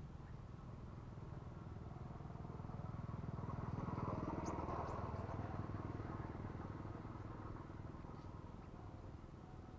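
A motor vehicle's engine passing by, growing louder to a peak about four to five seconds in and then fading away.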